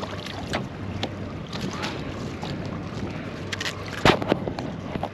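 Wind and water noise around a small boat, with scattered light clicks and knocks as fishing tackle is handled over the side. The loudest is a sharp knock about four seconds in.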